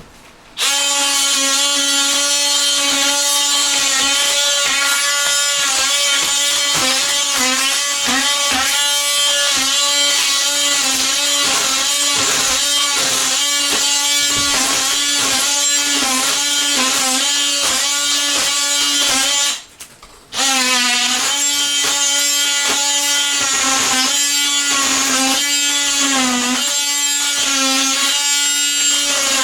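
DeWalt 20V Max cordless oscillating multi-tool with a scraper blade running at full speed as it chisels up old glued-down peel-and-stick floor tile. Its steady high hum wavers and dips in pitch as the blade is pushed into the tile. It is switched off about two-thirds of the way through and started again a second later.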